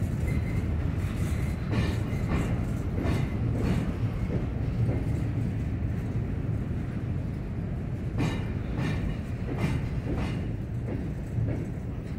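Freight cars of a Norfolk Southern train rolling slowly by: a steady low rumble, with wheels clicking over the rail joints, the clicks often coming in pairs as each car's trucks cross.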